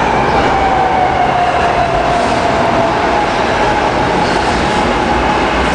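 SEPTA Market-Frankford Line train at an elevated station: loud, steady rumble and rail noise, with a motor whine that slowly falls in pitch as the train slows.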